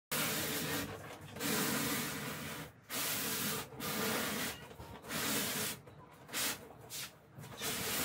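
Foam cooler box scraping and rubbing on a concrete floor as it is turned by hand, in irregular bursts of about a second each with short pauses between.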